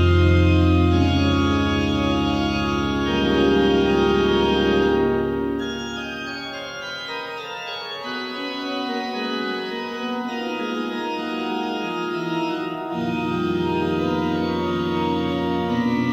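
Organ playing slow, sustained chords. A deep bass note fades out about six seconds in and comes back about thirteen seconds in, and the music is quieter in between.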